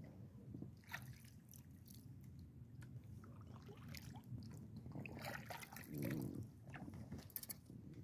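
Kayak paddle dipping into calm water, with small irregular splashes and drips.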